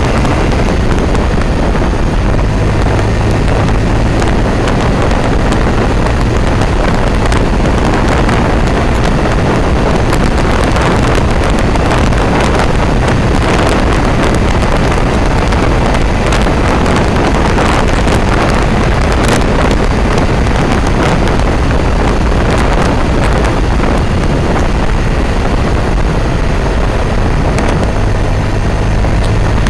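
Motorcycle riding at speed: heavy wind rushing over the microphone, with the engine running steadily underneath.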